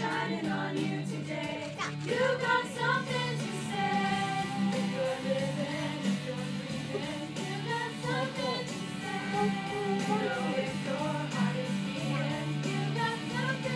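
Small group of singers, mostly women's voices, singing together with guitar accompaniment.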